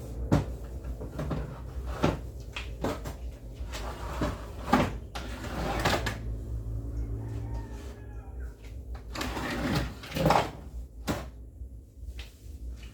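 Irregular knocks and clatters of household items, such as containers and shelves, being handled, set down and shifted. A steady low hum runs underneath.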